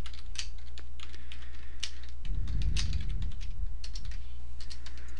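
Computer keyboard keystrokes: fast, irregular typing of a search phrase over a steady low hum, with a low rumble about two seconds in.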